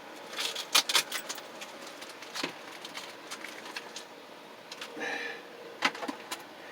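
Clicks and knocks of a small electric fan being handled and turned around, several close together about a second in and a few more later, over a steady background hiss.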